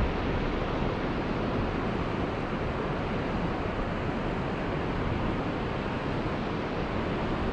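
Steady rushing of river water pouring through a weir, with wind buffeting the microphone.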